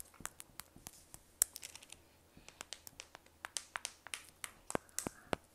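Light, sharp clicks and taps, irregular at a few a second, from sugar-glazed tanghulu fruit skewers being handled and knocked together.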